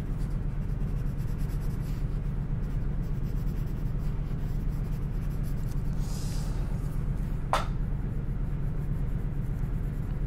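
Colored pencil shading on paper, a steady light scratching, over a steady low hum. There is one sharp click about seven and a half seconds in.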